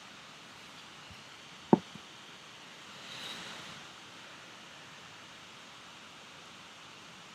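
Steady hiss, broken by one sharp knock a little under two seconds in and a smaller one just after, then a brief soft rush about three seconds in.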